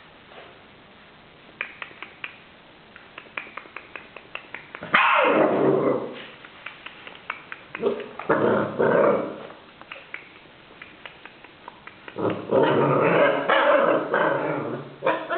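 Alaskan Malamute puppies play-growling and yapping in three loud, rough bouts, about five, eight and twelve seconds in, with light rapid clicking before the first bout.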